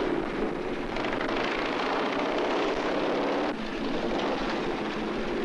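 Motorcycle engine running as the bike rides along a city street, a steady rapid firing pulse under road noise; the sound shifts slightly about three and a half seconds in.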